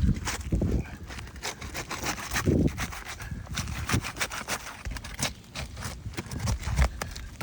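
A hand pry tool scraping and clicking under asphalt roof shingles as they are pried unsealed, with irregular scrapes and taps and a few dull knocks. The shingles are brittle and tear as they are worked loose.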